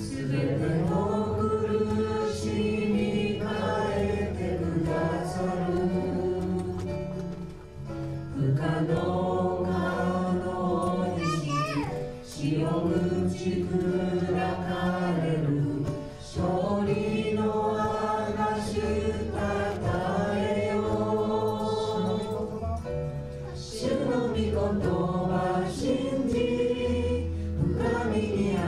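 Japanese worship song sung by several voices in long held phrases of about four seconds each, over sustained instrumental accompaniment.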